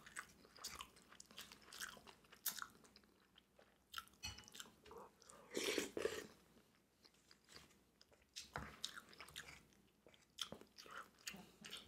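Close-miked chewing of steamed clams in butter sauce: faint, wet mouth sounds and small clicks, with a louder bite about six seconds in.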